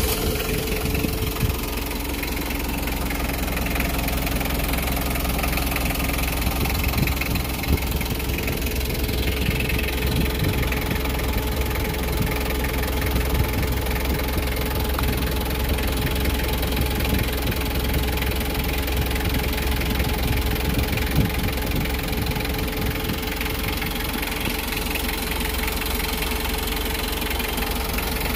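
Mitsubishi 4D56 2.5-litre four-cylinder diesel idling steadily on its first run after the fan clutch replacement.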